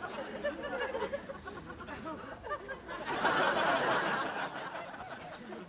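Audience laughter from many people, swelling again about three seconds in and then fading.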